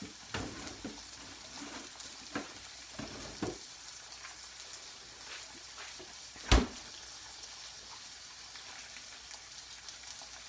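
Pork chops and peppers sizzling steadily as they fry in oil in a skillet, with a few light knocks and one loud sharp knock about two-thirds of the way through.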